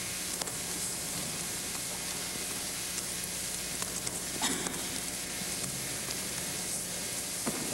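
Steady hiss of old analogue videotape with a low hum under it, broken by a few soft knocks, the clearest about four and a half seconds in and another near the end.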